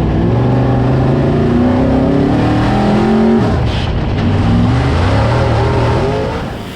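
Race car V8 engine accelerating hard, its pitch climbing steadily. About halfway through the pitch drops sharply, as on a shift up a gear, then climbs again.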